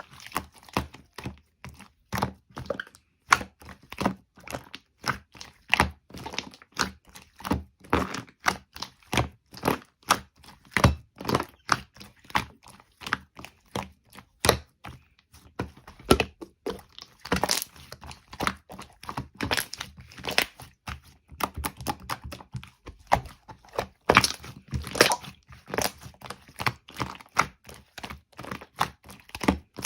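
Walnut shells being cracked and broken apart: a dense, irregular run of sharp cracks and knocks, several a second.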